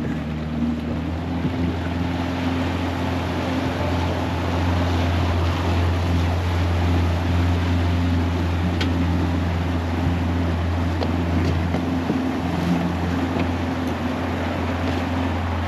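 Boat outboard motor running at a steady speed, a constant low hum, over the rush of water and wind.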